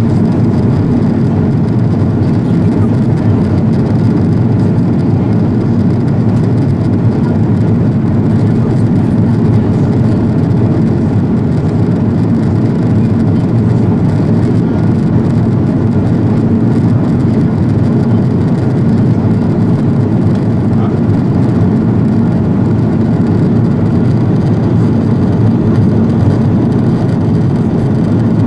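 Steady cabin noise of an Airbus A330-200 airliner in flight: a constant low rush of engine and airflow noise, heard from inside the cabin.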